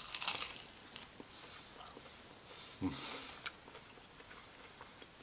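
Biting into a crispy-coated fried chicken leg: a crackly crunch of the coating in the first half-second, then quieter chewing with a few small clicks. A brief low hum from the eater about three seconds in.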